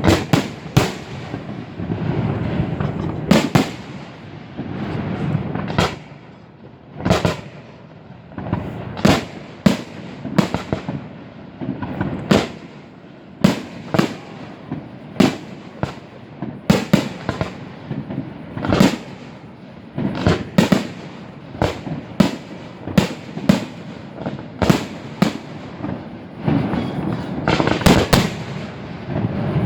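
Fireworks display recorded on a phone: a rapid series of aerial shell bursts, sharp bangs about one or two a second. In the first few seconds and again near the end, dense overlapping bursts merge into a rumble.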